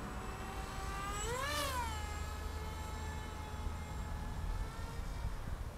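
Electric motor and propeller of a Crack Wing foam flying wing, whining in flight. The whine rises and then falls in pitch about a second and a half in, as the wing passes or the throttle changes, then holds steady before fading out near the end.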